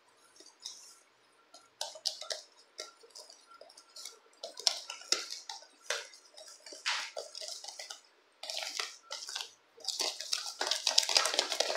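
Wire whisk beating cake batter by hand in a plastic bowl: irregular clicks and scrapes of the wires against the bowl, growing faster and more continuous near the end.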